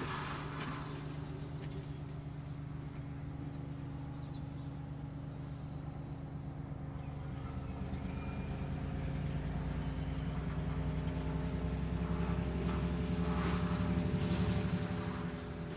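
N scale model freight train running past on the layout: a steady motor hum with the rolling of the wheels on the track, growing louder late on as the cars pass closest, then easing off.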